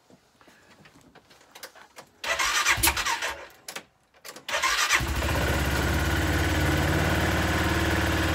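BMS Stallion 600 UTV's 600cc engine being started with the electric starter: a first crank of about a second and a half that does not catch, then a second short crank on which it fires about five seconds in and settles into a steady idle. It is being run to circulate freshly added oil after an oil change.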